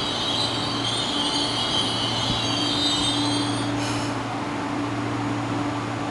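East Rail Line electric train at the platform: a steady low hum throughout, with a wavering high-pitched whine that cuts off suddenly about four seconds in.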